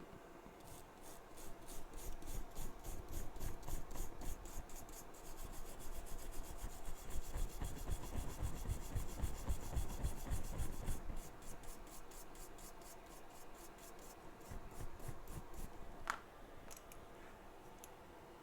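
A small brush scrubbing an iPhone 7 logic board in quick, even back-and-forth strokes for about ten seconds, then a few softer strokes and a single sharp click near the end.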